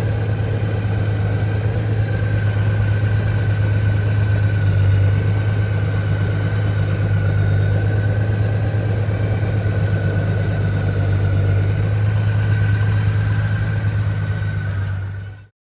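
Honda Gold Wing's 1833 cc flat-six engine idling steadily, with no revving; the sound cuts off suddenly near the end.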